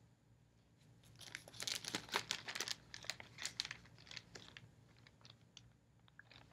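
Clear plastic gallon Ziploc bag crinkling as it is picked up and held open by hand: a flurry of rustles starting about a second in, thinning to a few light clicks near the end.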